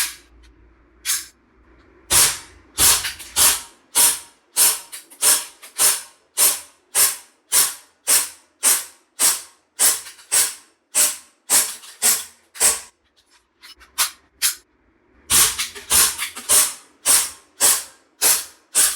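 ASG CZ P-10 C green gas blowback airsoft pistol firing shot after shot at a steady pace of about two a second, each a sharp crack. There are a few scattered shots at first and a pause of about two seconds past the middle, then the shots resume.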